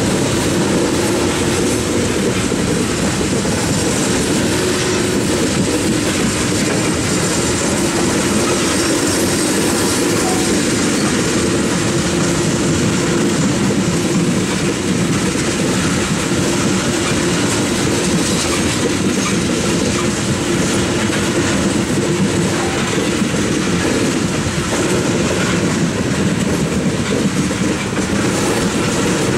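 Coal hopper cars of a heavy freight train rolling past steadily, their steel wheels running on the rails in an even, unbroken noise.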